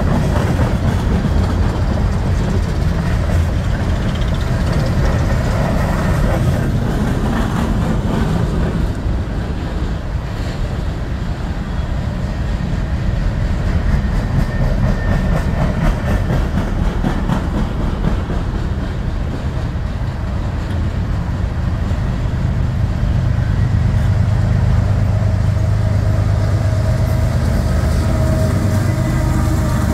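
Empty coal cars of a freight train rolling past with a steady rumble and clatter of wheels on rail. From about two-thirds of the way in, the steady low drone of the mid-train diesel locomotives builds as they come alongside.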